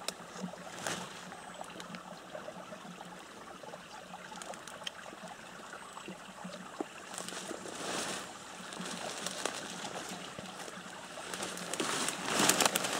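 Steady trickle of water running through a beaver dam, with leaves and branches rustling a few times, loudest near the end.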